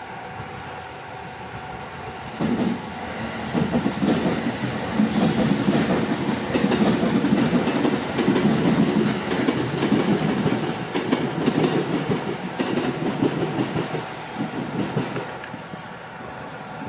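Meitetsu Bisai Line electric train passing over a level crossing: the wheels clatter over the rail joints, coming in a couple of seconds in, loudest in the middle and fading away near the end. The crossing's warning bell rings steadily throughout.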